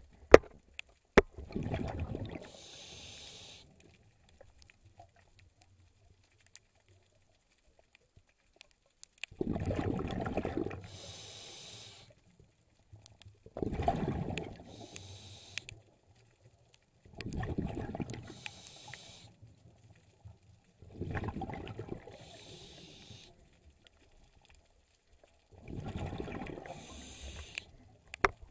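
Scuba diver breathing through a regulator underwater: six breaths, each a rumble of exhaled bubbles and a high hiss from the regulator, about every four seconds after a longer pause between the first and second. A couple of sharp clicks near the start.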